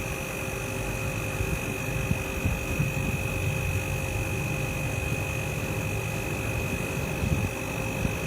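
Steady machine hum with a low rumble, a constant high whine and a few faint knocks.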